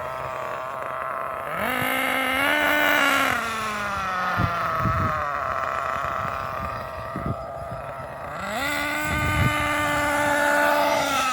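Losi 8IGHT-T RC truggy's small engine buzzing, revving up twice, about a second and a half in and again near the end, holding briefly each time and then falling back. Wind buffets the microphone with low thumps.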